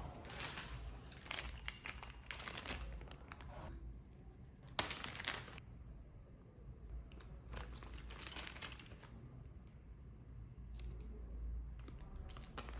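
Plastic packaging crinkling and rustling in several separate bursts, as a bag of sewing-machine accessories is handled and opened.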